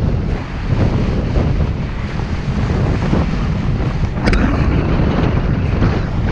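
Wind buffeting the microphone on a moving skier, a loud steady rumble with hiss. A short sharp click about four seconds in.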